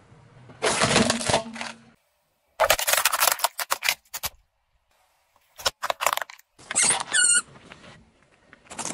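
Objects crushed one after another under a car tyre, each a short separate burst of crunching and cracking. First comes hard plastic splitting, then ceramic breaking, then a few sharp clicks and a brief squeak about seven seconds in.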